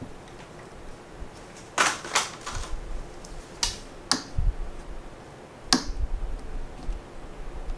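A handful of sharp clicks and knocks at irregular intervals, with a few low thuds beneath, from a hand-towel holder being handled and fitted in place.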